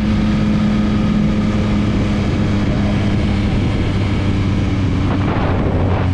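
Motorcycle engine running at steady revs while riding, its even drone overlaid by a rush of wind noise.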